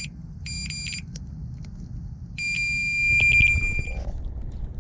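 Carp bite alarm receiver sounding: a few short beeps, then about two and a half seconds in a single unbroken tone lasting about a second and a half, the sign of a fish running with the line. A low rumble of handling and movement swells under the long tone.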